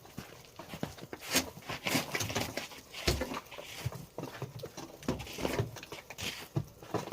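Snow shovel scraping and breaking up crusted, icy snow in irregular strokes, with crunching and a few dull knocks.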